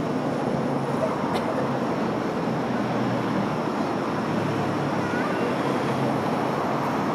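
Steady murmur of a large crowd of spectators talking.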